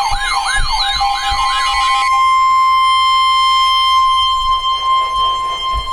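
Weather radio alert going off for a severe thunderstorm warning. A fast siren-like warble runs over a steady tone and stops about two seconds in, leaving the steady 1050 Hz NOAA warning alarm tone, which cuts off near the end.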